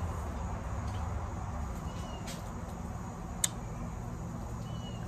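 Outdoor background: a steady low hum with three faint, short, high chirps spread through, and a single sharp click about three and a half seconds in.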